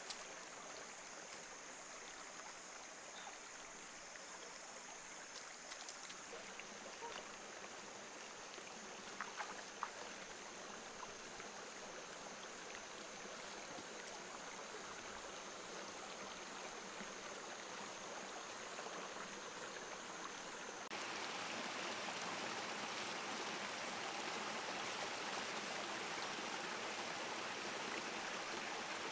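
Shallow forest stream running steadily over rocks. About two-thirds of the way in, the water noise suddenly gets louder and hissier.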